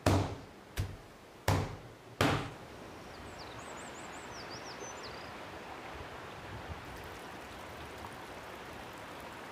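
Four sharp knocks in the first two seconds or so, each dying away quickly. Then a steady outdoor hiss with a small bird chirping briefly.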